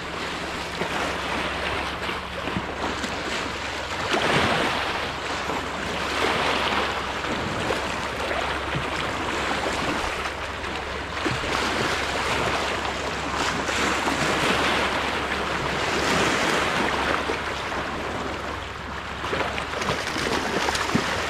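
Small saltwater waves washing on the shore, a steady wash that swells and eases every few seconds.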